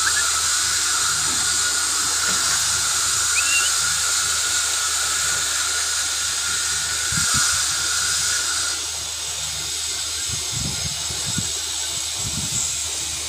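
Loud steady high-pitched hiss over a low hum, with a brief rising chirp about three seconds in and a few low thumps in the second half.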